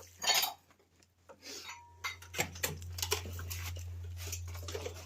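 Scattered light knocks, clinks and scrapes of objects being handled, over a low steady hum.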